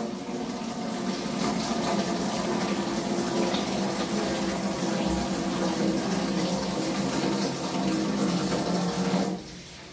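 Kitchen tap running steadily into a stainless steel sink whose drain is shut by a newly fitted valve, so the basin fills; the water stops suddenly near the end.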